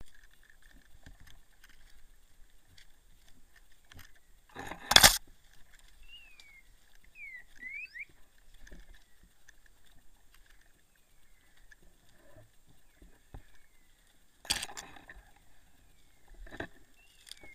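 A hunter walking through forest undergrowth, with rustling and brushing against plants, a loud sharp crack about five seconds in and smaller knocks later on. A few short, high, falling chirps come from small birds.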